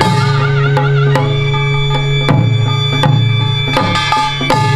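Korean traditional music for the Jindo drum dance (Jindo bukchum): sharp, unevenly spaced strokes on barrel drums (buk) over held melody notes, some wavering in pitch.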